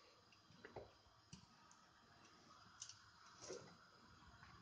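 Near silence with a few faint, scattered clicks and taps of metal tongs handling a raw lamb shank on a plate.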